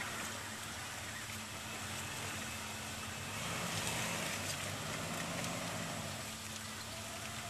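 Nissan Patrol 4x4 engine running at low speed as it crawls through a muddy rut, its note growing and rising a little about three seconds in along with a louder rush of noise, then easing. A steady hiss of light rain lies under it.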